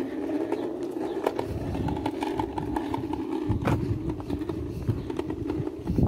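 Steady rolling rumble of a small kick scooter's plastic wheels on an asphalt footpath, mixed with the footsteps of someone walking behind, which come through as a string of short knocks. A heavier low rumble from about a second in sounds like wind on the microphone.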